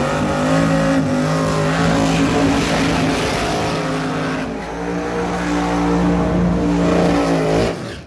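Big-tyre drag car engine held at high revs during a burnout, tyres spinning and smoking. The engine note holds steady, dips briefly about halfway through, and cuts off sharply near the end.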